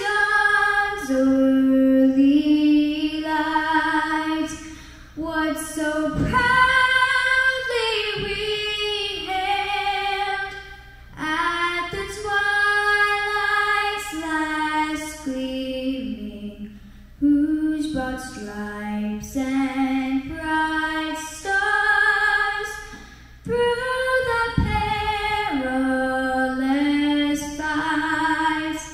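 A woman singing solo and unaccompanied, holding long notes with short breaks for breath, amplified in a large gymnasium.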